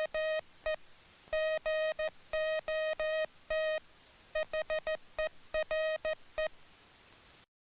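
Morse code sent as a keyed steady beep: short dits and longer dahs in quick groups, with longer pauses between words. The pulses stop near the end, leaving a faint hiss.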